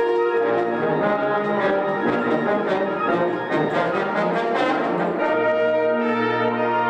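Concert band of brass and woodwinds playing, the brass prominent. Busy passages of short notes give way about five seconds in to fuller sustained chords with low brass underneath.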